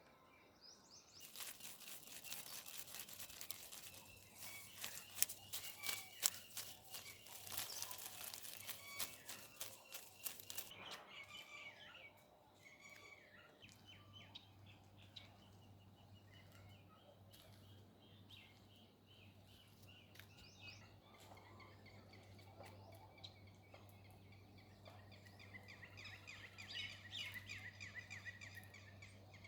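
Birds chirping: a loud, rapid, dense chattering for the first third, then fainter scattered chirps and calls, with another run of quick chirps near the end. A steady low hum sits underneath from about halfway through.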